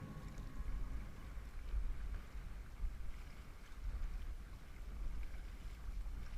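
Uneven low wind rumble on a head-mounted GoPro's microphone, over a faint steady hiss of water around a kayak.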